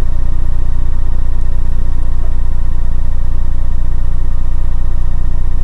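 Loud, steady low electrical hum with a faint hiss under it, unchanging throughout: hum in the recording chain, with no other event.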